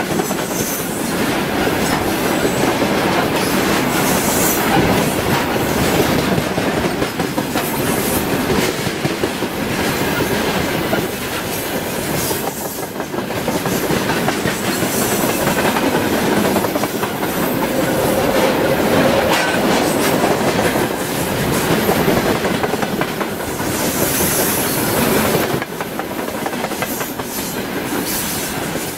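Freight train of railway tank wagons rolling past close by: a steady rumble of wheels with clickety-clack over the rail joints. A brief high wheel squeal comes near the end, as the train takes an S-curve.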